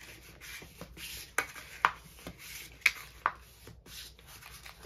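Scored cardstock being accordion-folded and creased by hand: paper rubbing and sliding, with a few sharp crackling snaps as the folds are pressed down.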